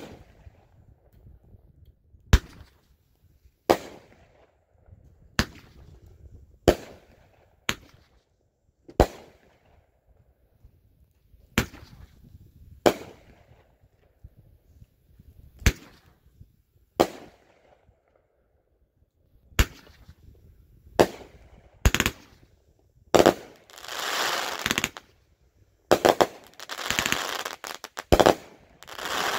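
Dominator Fireworks 'Knuckle Sandwich' 20-shot 500 g firework cake firing shell after shell, each a sharp bang with a short echo, one every one to three seconds. Over the last six seconds the shots come faster and long stretches of crackling fill the gaps between them.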